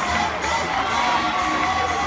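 Football crowd cheering and shouting after a goal.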